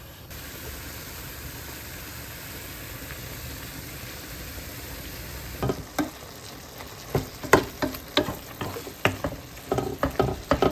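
Ojingeo-samgyeopsal bulgogi (squid and pork belly in red chilli sauce) sizzling as it stir-fries in a frying pan, a steady hiss. From about six seconds in, a spatula knocks and scrapes against the pan again and again as the food is stirred.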